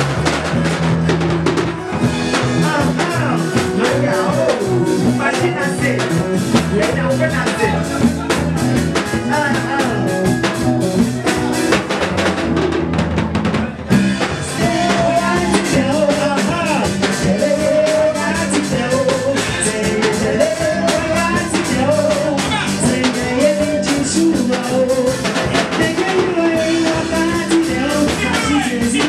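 Gospel music: a singing voice over drums and a steady bass line, with a brief drop-out about halfway through.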